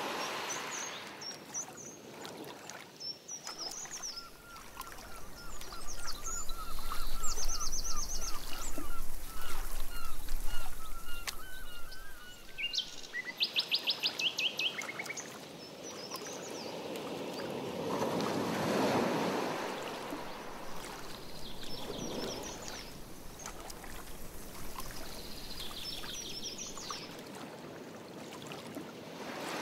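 Canoe paddle strokes in lake water, coming as a few slow swells of splashing and dripping, while songbirds sing and chirp: a run of quick repeated notes in the first half, then short trills.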